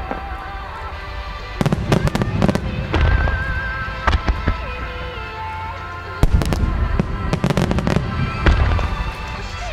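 Size-8 aerial firework shells bursting in quick succession in a star mine: clusters of sharp bangs and booms, thickest about a second and a half to four seconds in and again from about six to eight and a half seconds. Music with a held, wavering melody plays underneath.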